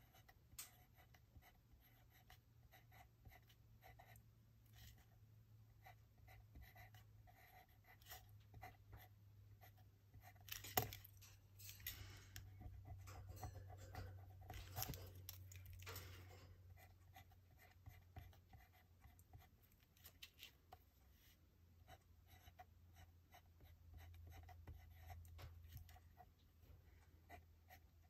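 Faint scratching of a pen or pencil marking on paper, with scattered light taps and rustles; a sharper tap comes about 11 seconds in, followed by a few seconds of busier scratching.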